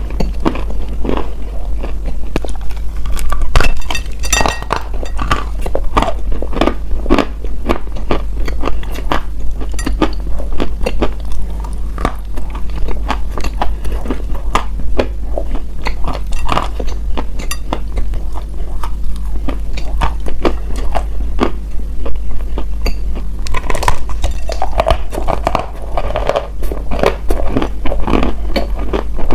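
Close-miked biting and chewing of crunchy edible earth: a dense, irregular run of sharp crunches and clicks, with a steady low hum underneath.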